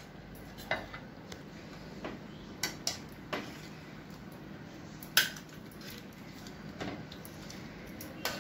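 A metal ladle clinking and scraping against a pressure cooker and a steel bowl as cooked mutton pieces are lifted out. The clinks come singly and irregularly, with the loudest one about five seconds in.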